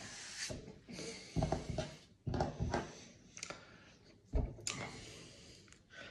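Mouth and breath sounds of a man tasting a mouthful of beer: lip smacks, tongue clicks and breaths through the nose, a handful of short irregular noises about a second apart.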